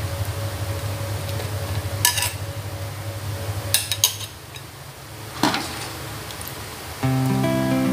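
A metal ladle stirring and scooping thick goat curry in a wok, knocking against the pan in a few sharp clinks. Guitar music comes in near the end.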